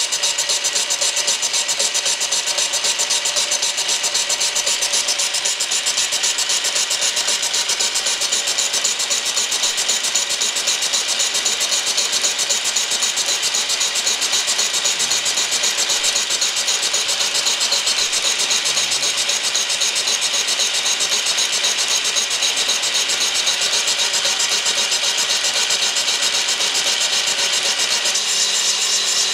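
Van Norman boring bar running steadily, its cutter making the first boring pass through a Yamaha 701 cylinder sleeve, taking it out towards 84 mm.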